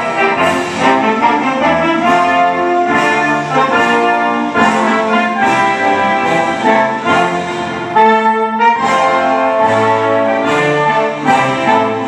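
Orchestral music led by brass, moving through held chords.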